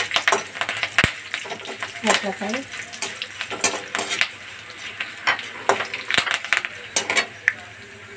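Metal spatula scraping and clinking against a metal kadhai as curry leaves, dried red and green chillies and dal sizzle in hot oil, being fried crisp. The stirring strokes stop near the end, leaving a fainter sizzle.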